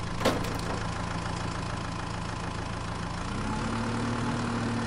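Tractor engine sound idling steadily, stepping up in pitch a little over three seconds in as the tractor starts to pull. A short click comes just after the start.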